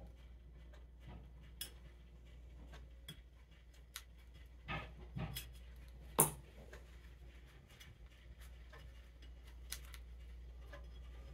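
Faint clicks and scrapes of a small screwdriver and metal choke parts being worked into a Ford 8N tractor carburetor body, over a low steady hum. The sharpest click comes about six seconds in.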